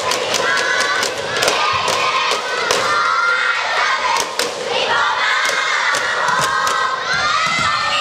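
Crowd of junior high students shouting cheers in a gymnasium during a volleyball match, many voices overlapping, with frequent sharp knocks among them.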